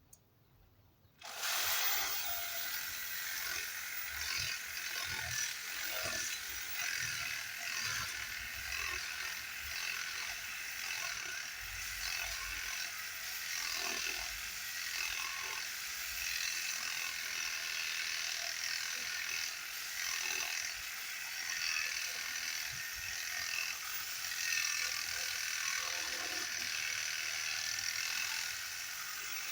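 A power tool switched on about a second in, its motor running steadily with a high, buzzing whine through the rest.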